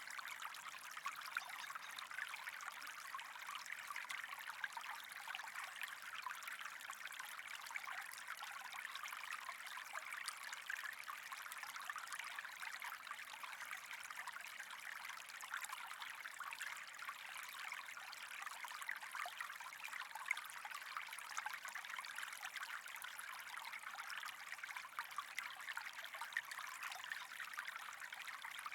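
Water running in a steady, even trickle, with a constant fine crackle.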